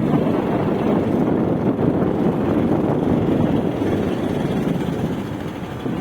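A moving vehicle running, with the steady rush of wind over the microphone.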